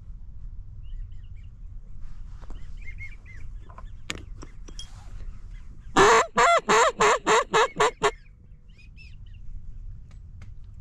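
A mallard hen duck call blown close by: a quick run of about eight loud quacks lasting about two seconds, starting about six seconds in. Faint whistles of wigeon come and go around it.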